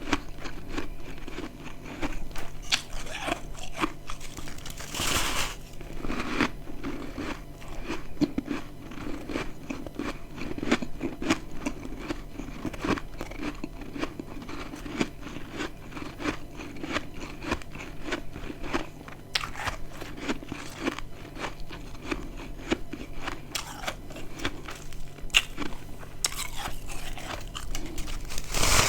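Close-up chewing of dry, crispy humidifier freezer frost chunks: a steady run of crackling crunches as the frost is ground between the teeth, with a few louder bites, one about five seconds in and one at the very end.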